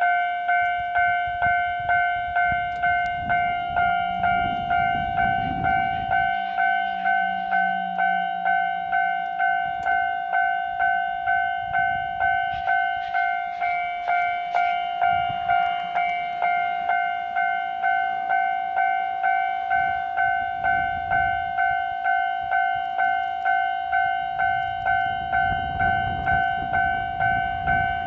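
Japanese railway level-crossing warning bell ringing in an even, steady clang, about three strikes every two seconds, with low rumbling underneath at times.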